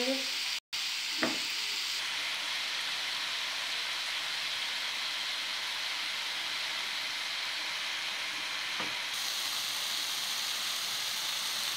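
Marinated chicken pieces sizzling on a hot nonstick tawa: a steady frying hiss. It drops out for an instant under a second in, and a light click comes about a second in.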